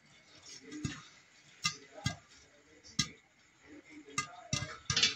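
Popcorn kernels popping in a covered pot, the pops ticking against the glass lid over a faint sizzle of hot oil. The pops are irregular and sparse at first, then come quicker near the end.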